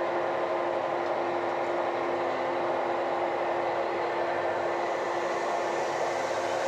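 Tractor engine and drivetrain running steadily under load, a constant drone with a few held tones, heard from inside the cab.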